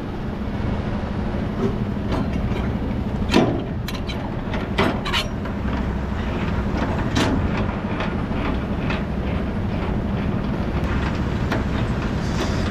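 Semi-truck diesel engine idling steadily, with a dozen or so sharp, irregular metallic clanks and clicks from the tractor-trailer hook-up.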